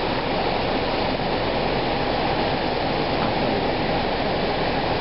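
Steady rushing of floodwater, a swollen creek pouring across a road.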